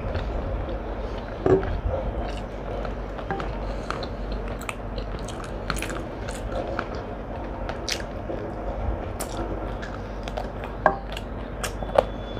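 A person chewing and biting food close to the microphone, with many small wet mouth clicks, a sharper knock about one and a half seconds in, and two more sharp clicks near the end.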